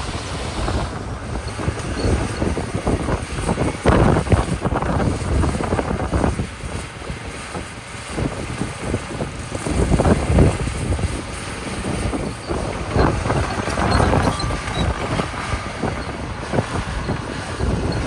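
Heavy machinery working gravel: a dump truck unloading its load and a small crawler bulldozer's diesel engine running as it pushes and spreads the gravel, swelling louder several times, with wind on the microphone.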